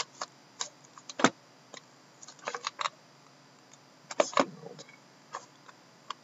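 Shrink-wrapped cardboard boxes handled and turned over by hand: scattered short taps, knocks and plastic crinkles, the sharpest knock a little over a second in and a cluster of clatter around four seconds in.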